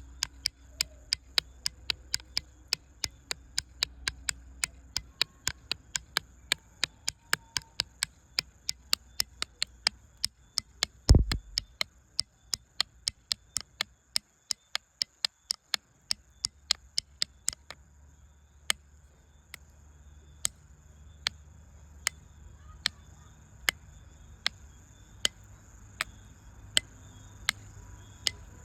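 Sharp, regular clicks, about three a second, that thin out to scattered clicks after about seventeen seconds, over a faint steady high tone. One heavy low thump about eleven seconds in.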